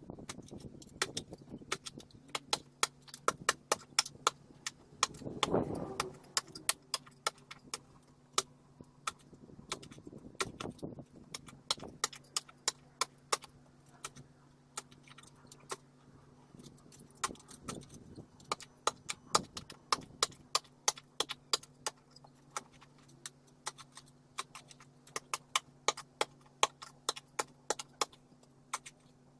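Many sharp, irregular clicks and rattles, several a second, over a steady low hum that begins a couple of seconds in.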